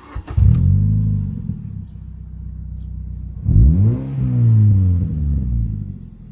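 Mazda MX-5's four-cylinder petrol engine revved twice with its exhaust pipe snapped, once about half a second in and again about three and a half seconds in, the pitch rising then falling back to a lower running note between. It sounds alright.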